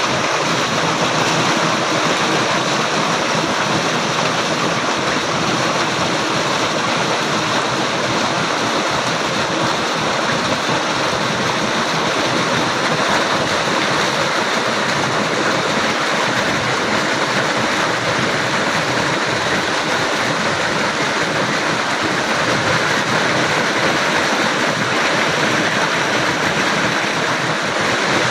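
Running water flowing steadily, an even, unbroken wash of water noise.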